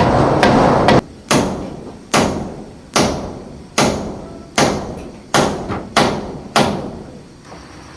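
Tool blows striking wood in a steady rhythm, about one every 0.8 seconds, each strike ringing out briefly. A loud rough noise cuts off about a second in.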